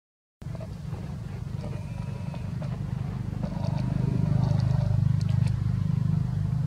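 A motor engine running steadily with a low hum that grows louder about four seconds in, after a brief dropout at the very start. A few faint high ticks come through in the middle.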